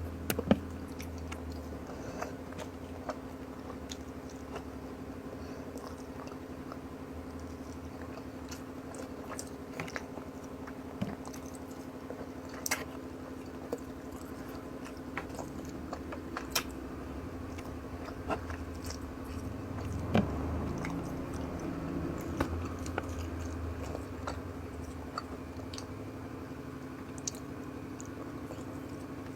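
Close-miked chewing and eating of fish stewed in coconut milk with rice, with many scattered short sharp clicks and a steady low hum underneath.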